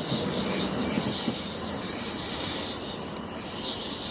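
Class 450 Desiro electric multiple unit pulling away and receding, its wheels on the rails making a steady rushing rumble. The sound grows quieter about three seconds in as the train draws away.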